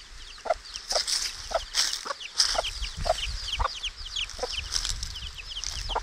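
Week-old chicks peeping, a rapid stream of short high falling cheeps, while a mother hen gives low short clucks every second or so as she forages with her brood.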